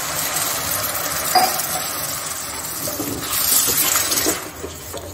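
A steel spoon stirring a thin masala gravy in a stainless steel kadai just after water has been added, the liquid sizzling steadily in the hot pan. The spoon clinks against the pan about a second and a half in and scrapes harder around three to four seconds in.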